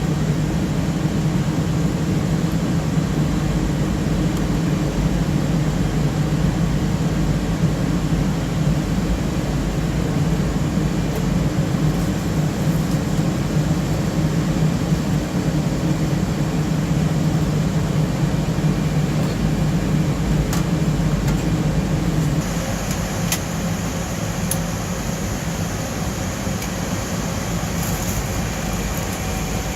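Cooling fans of an HP BladeCenter C7000 blade enclosure running, a steady loud whir. About 22 seconds in the low hum drops and a higher hiss takes over, with a few faint clicks.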